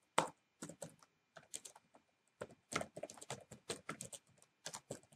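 Typing on a computer keyboard: quick, irregular keystroke clicks, with a short pause about two seconds in before a denser run of keys.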